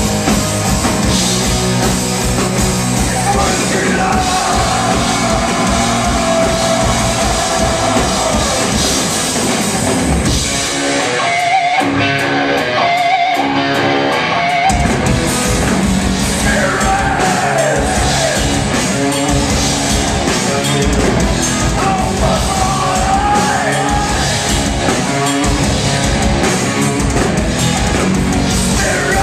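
Live punk-rock band playing: distorted electric guitars, a drum kit and lead vocals. About eleven seconds in, the bass and kick drum drop away for roughly four seconds, then the full band comes back in.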